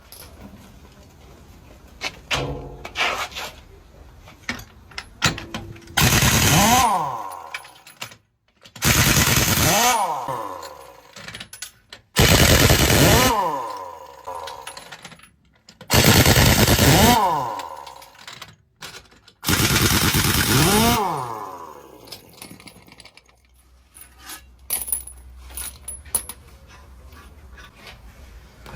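Pneumatic impact wrench on heavy-truck wheel nuts: five loud bursts, each fading with a falling whine as the tool spins down. Metal clanks and knocks come before and after.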